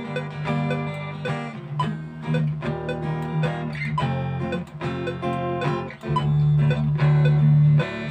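A recorded acoustic guitar, a Yamaha F310, played back through a graphic equalizer with its bass band being boosted. Plucked chords ring over a sustained low note, and the low end is loudest from about six seconds in until just before the end.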